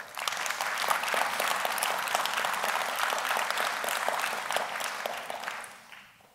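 Audience applauding: many people clapping, starting all at once and dying away after about five and a half seconds.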